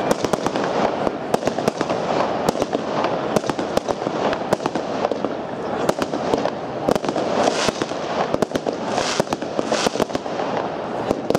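Steengoed Viper firework cake firing: a fast, unbroken run of shots launching and bursting, several sharp bangs a second, with a few brighter hissing bursts in the second half.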